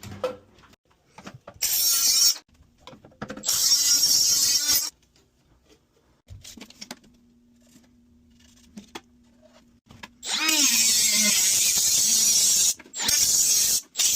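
Power drill driving screws in four short runs of one to two seconds each, each with a rising whine as it spins up. Small handling clicks fall in the quiet gaps between runs.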